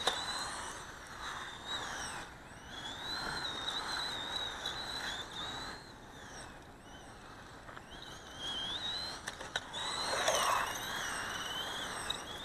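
Brushed electric motor and drivetrain of a 1/18-scale FS Racing short course RC truck whining as it drives on concrete, the whine rising and falling with the throttle over tyre noise.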